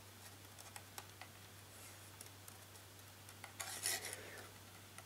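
Faint handling sounds as a hand slowly turns a propeller on a T-Motor MN2214 brushless motor: a few small clicks in the first second or so, then a brief louder rubbing rush about three and a half seconds in. The owner distrusts this motor for its extra friction, notchy movement and an occasional click or rattle when spun.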